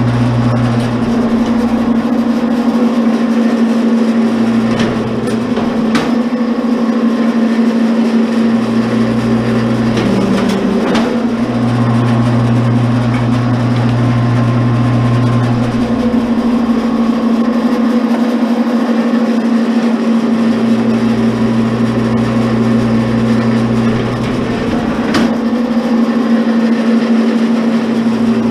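Commercial electric wire stripper's motor running with a steady electric hum; a deeper hum swells in and drops out every few seconds as the load changes, and a few sharp clicks sound along the way.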